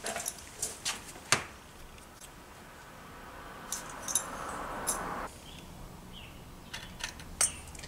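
Handling noise from a moped's finned engine cylinder turned over in the hands on a workbench: light metallic clicks and taps, a soft rubbing hiss for about two seconds midway, and a few more clicks near the end.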